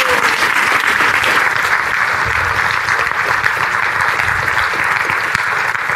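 Lecture-hall audience applauding, steady, dense clapping.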